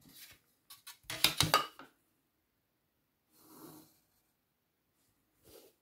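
Drawing instruments being handled on a drawing board: a quick clatter of knocks and clicks about a second in as a plastic set square is set down against a wooden T-square, then a short rub on the paper from the pencil and set square a couple of seconds later.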